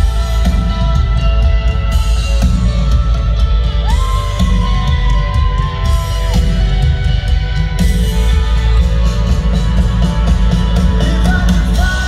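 Live rock band playing over a large concert PA, heard from among the audience, with shouts and whoops from the crowd. About four seconds in, a single long high note is held for about two seconds.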